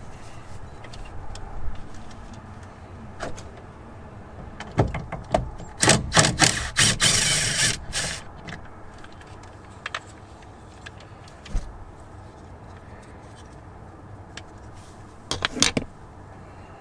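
Tools and screws clicking and rattling against a pickup truck's door panel as its screws are taken out, with a dense run of clicks and a short rasping burst about halfway through and another brief cluster of clicks near the end.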